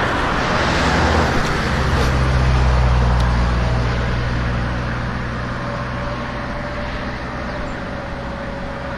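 A motor vehicle passing close by: a low engine drone swells to its loudest about three seconds in, then fades away.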